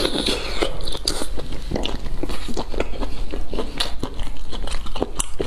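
Close-miked mouth sounds of eating cooked snails: a short suck at the start as meat is drawn from a shell, then chewing with many quick wet clicks and smacks.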